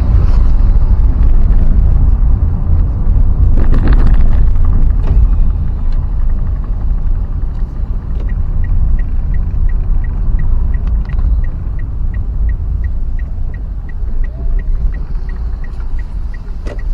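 Steady low rumble of a moving vehicle with wind and road noise. About eight seconds in, a short high beep starts repeating evenly about three times a second, the pattern of a turn-signal indicator buzzer.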